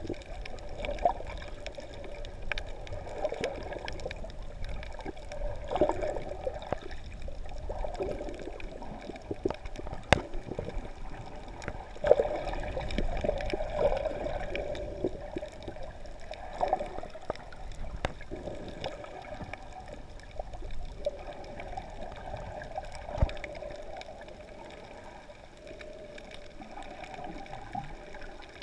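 Muffled underwater water movement heard through a camera's waterproof housing just below the surface: sloshing and gurgling that swells and fades, with a low rumble and scattered sharp clicks.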